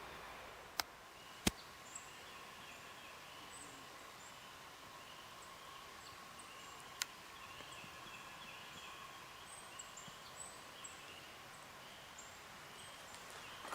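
Quiet outdoor ambience: faint, broken high chirping and a steady faint hum throughout, with three sharp clicks, about a second in, a second and a half in, and about seven seconds in.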